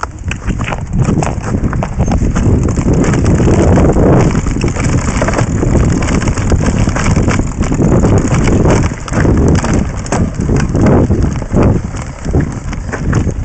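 Mountain bike clattering over a rocky, rutted dirt trail on a descent: a constant irregular rattle of tyres striking stones and the bike shaking, over a heavy low rumble, heard through a camera mounted on the bike.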